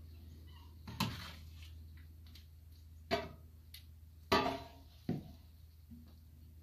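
A ladle and stirring paddle knocking against the homemade kettle while working thick scrapple mush: four sharp knocks at uneven intervals, the loudest a little past the middle.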